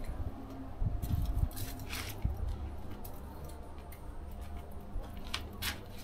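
Wood fire burning in a brick barbecue firebox, giving off scattered irregular crackles and pops over a low rumble.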